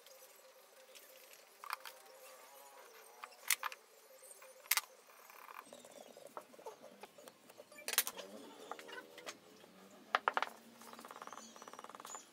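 Pencil scratching on wood as layout lines are drawn and hatched, with a handful of sharp clicks and taps from marking tools handled on the wooden bench.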